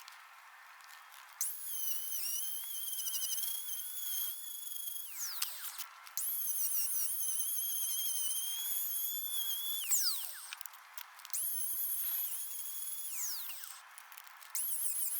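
A small high-speed power tool motor whining in repeated bursts of a few seconds, its pitch wavering as it works and sliding down as it winds down after each stop.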